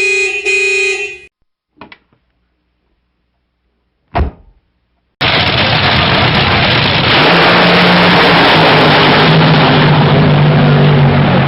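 A car horn sounds for about a second, then it goes quiet apart from a short thump about four seconds in. From about five seconds a car engine runs loud and steady, with road or engine noise and a low hum.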